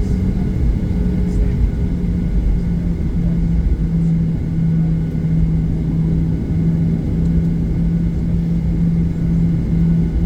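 Cabin noise inside a Boeing 737-800 taxiing: its CFM56-7B engines running at taxi power over a steady low rumble, with a steady low hum that drops slightly in pitch about four seconds in.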